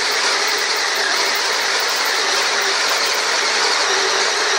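Handheld power drill running steadily under load as its bit cuts into a steel hinge strap.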